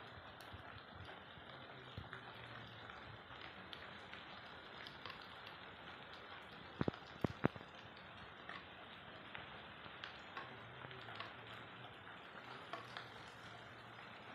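Light rain falling, a steady soft hiss with scattered drops ticking irregularly. About seven seconds in, a quick run of four sharp clicks stands out as the loudest sounds.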